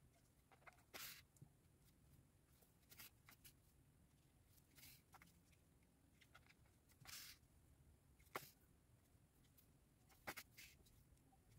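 Near silence with faint, short rustles every second or two: yarn drawn through crocheted fabric as a needle sews on trim, and fingers handling the yarn doll.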